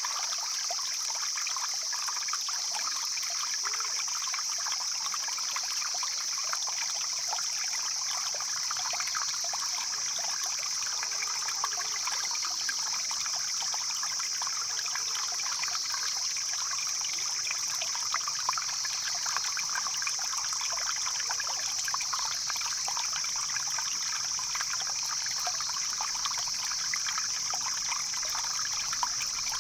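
Mountain stream flowing over rocks, a steady rush of water with constant small trickles and splashes. A steady high-pitched hiss sits over it.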